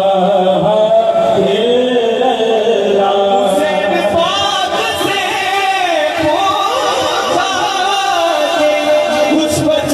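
Qawwali singing: male voices carry long, bending melodic lines, with several voices heard together.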